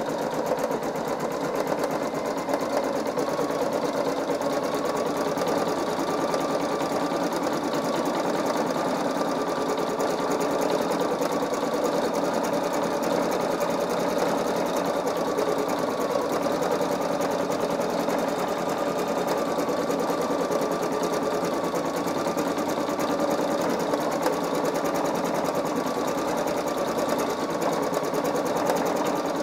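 Singer EM9305 embroidery machine stitching out a design: the needle runs at a fast, even rate, with a steady mechanical hum and a faint tone that wavers slightly in pitch.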